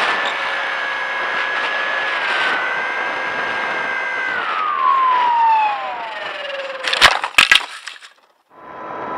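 Electric motor and propeller of a Bixler 3 foam plane whining steadily over wind rush. The pitch falls over a couple of seconds as the throttle comes down. Then a few sharp cracks and knocks about seven seconds in, as the plane hits the grass. After a brief silence near the end, the motor whine returns at a lower pitch.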